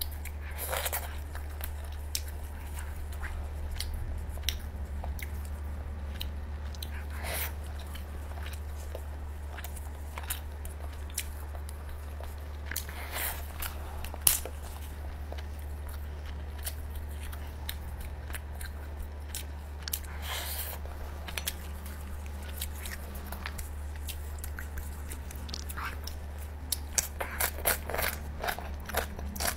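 Close-miked eating of grilled lobster: chewing and biting, with scattered clicks and crackles as the shell is pulled apart and a dense run of crunching near the end. A steady low hum sits underneath.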